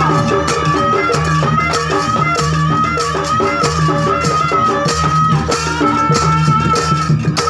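Loud Javanese traditional dance music: a wavering high melody line held over repeating pitched percussion, a steady low beat and a rattling, jingling accompaniment.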